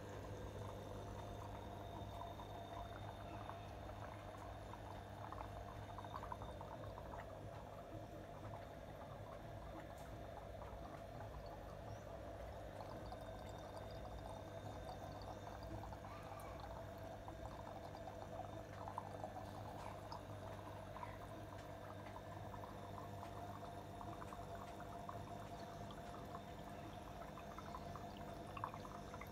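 DIY protein skimmer running: water splashing and gurgling steadily out of its outlet into the tank, with fine crackling bubble noise and a steady low hum underneath.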